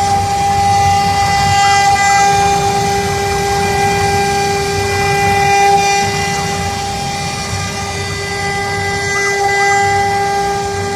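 Air-cooled spindles of a double-head wood CNC router running at speed: a steady high whine with a strong overtone above it, over a rough low noise from the machine.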